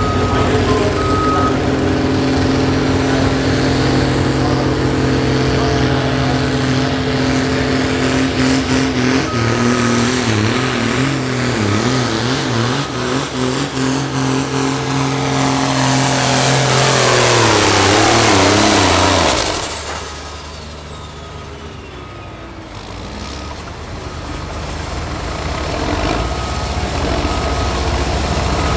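John Deere 4255's turbocharged six-cylinder diesel at full throttle pulling a tractor-pull sled, its note wavering in the middle of the run, then dragging down in pitch as the load builds. About 19 seconds in the throttle is cut and the engine drops sharply to a low idle.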